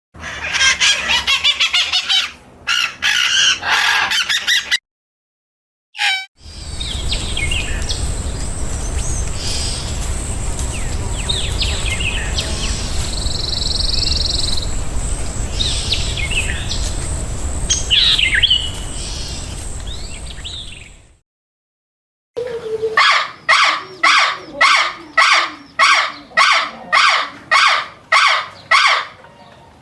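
Birds chirping and calling in three stretches, each cut off by a sudden silence. First comes a dense burst of chirping, then scattered chirps over steady outdoor background noise with a constant high thin tone. Last comes a run of evenly repeated calls, about two a second.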